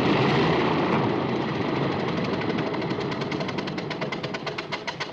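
Old propeller plane's piston engine running in flight, a rapid, even beat that grows clearer as the engine sound slowly fades.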